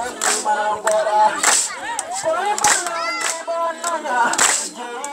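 Voices singing a melody, cut by sharp percussive cracks at uneven intervals, about half a second to a second and a half apart.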